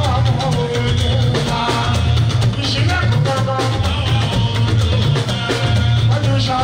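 Live fuji band music: a man singing into a microphone over electric bass, keyboard and a drum kit with busy percussion, the bass strong and steady.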